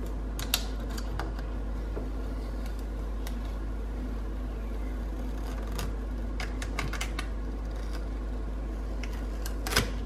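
Scattered light clicks and crackles of transfer tape being peeled back off a vinyl label stuck to a clear plastic container, over a steady low hum.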